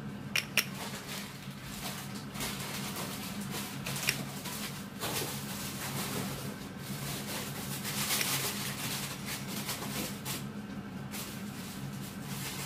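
A small plastic makeup tint bottle is handled and squeezed over a plastic tub of slime: sharp clicks near the start and about four seconds in, and soft rustling handling noise, over a steady low hum.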